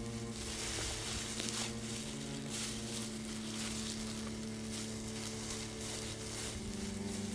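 A low, sustained music drone of held notes that shifts to a new chord near the end, over the crunch and rustle of footsteps through dry fallen leaves.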